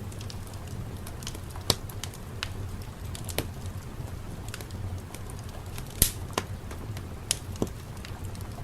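Wood fire crackling in a fireplace: irregular sharp pops and snaps, the loudest about six seconds in, over a steady low rumble.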